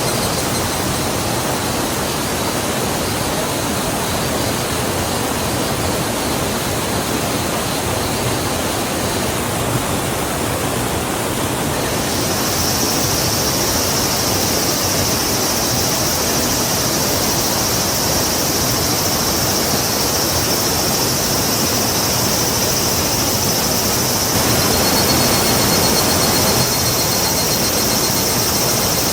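River water rushing steadily in a tropical forest, with a steady high-pitched buzz joining about twelve seconds in.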